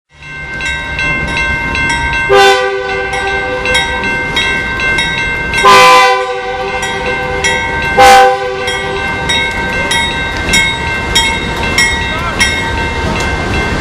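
A BNSF diesel freight locomotive sounds its multi-note air horn in three blasts, the middle one the longest, while a grade-crossing signal bell dings about twice a second. A low rumble of the locomotive and train runs underneath.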